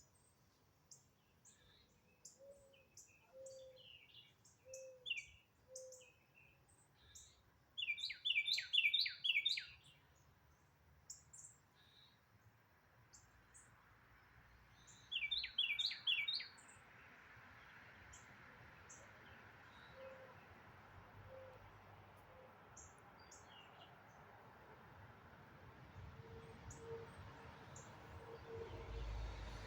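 Several wild birds calling and singing: scattered high chirps, a run of soft low hoots about a second apart, and twice a loud burst of rapid down-slurred whistled notes. A soft rushing background grows through the second half.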